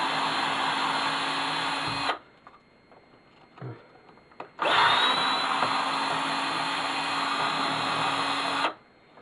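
Power drill-driver with a square bit backing screws out of a power strip's metal housing: two runs of steady motor whine, about two and four seconds long, with a short pause and a couple of small knocks between them.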